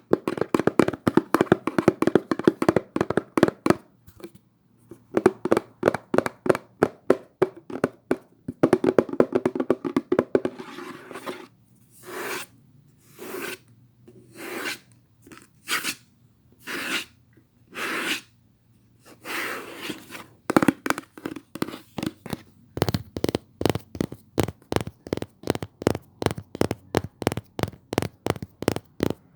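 Close-up ASMR tapping: quick runs of sharp taps, several a second, with a stretch in the middle of separate scraping or rubbing strokes about one a second.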